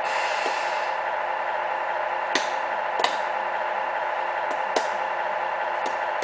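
Electronic idling diesel engine sound from a Tamiya 1/14 Scania RC truck's sound unit, a steady hum through a small speaker. A short hiss comes at the start, and a few sharp clicks come in the second half.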